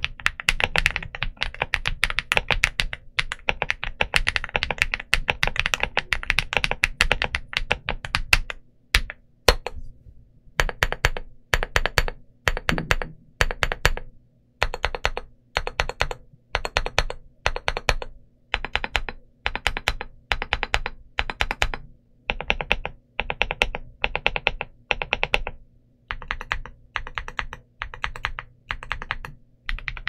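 Galaxy80 mechanical keyboard with Polar Panda tactile frankenswitches (Holy Panda housing and spring, Purple Panda stem) and MT3-profile keycaps being typed on: fast continuous typing for about eight seconds, then separate keystrokes a little under a second apart.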